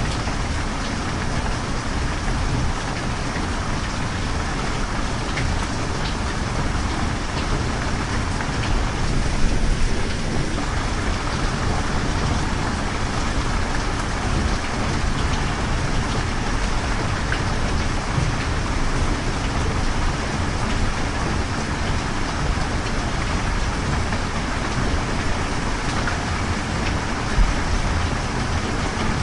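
Steady rain, an even dense patter over a low rumble, which swells briefly about ten seconds in.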